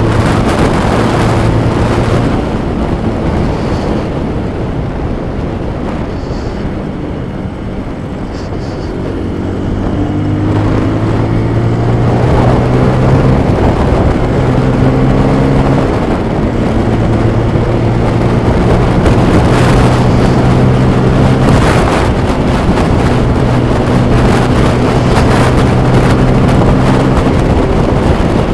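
Motorcycle engine running while riding, heard from the rider's helmet with wind rushing over the microphone. The engine eases off around eight seconds in, then its pitch climbs and drops as it changes up a gear, and it settles into a steady cruise.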